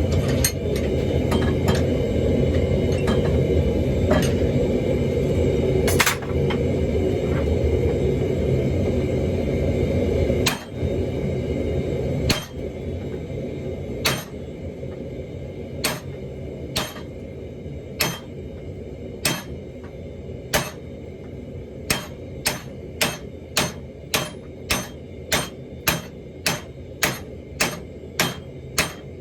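Hammer blows on a 2-inch steel ball bearing being forged on an anvil, each a sharp metallic clink; slow and spaced at first, then quickening to about one and a half strikes a second. A steady low rumble fills the first third and then drops away.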